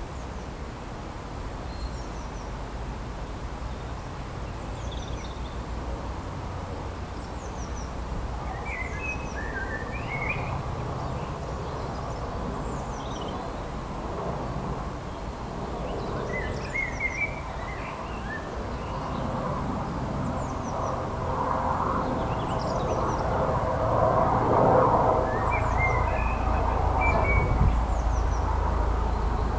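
Small birds chirping and calling on and off over a steady low outdoor rumble. In the second half a passing car grows louder, peaking about 25 seconds in, then fades slightly.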